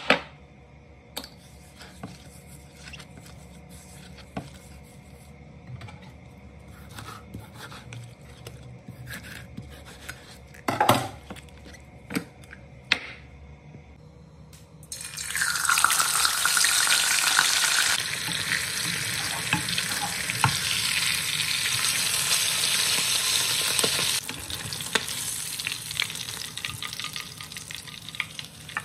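Whole pomfret deep-frying in hot oil in a wok: a loud, dense sizzle that starts suddenly about halfway through and dies down somewhat near the end. Before it, quiet kitchen handling with a few sharp knocks and clinks.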